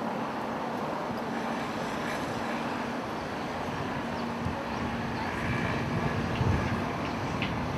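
Steady outdoor rumble with wind buffeting the microphone, gustier about six seconds in.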